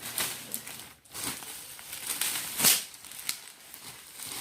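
Plastic parcel packaging crinkling and rustling in a series of short bursts as it is handled and opened, the loudest a little past halfway.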